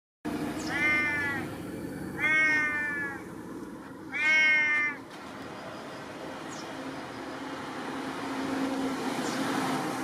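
A stray cat meowing three times in the first five seconds, each call drawn out for about a second, begging for food.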